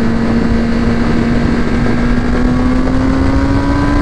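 Sportbike's inline-four engine running steadily at speed, its pitch rising slowly as it pulls, over a rush of wind noise.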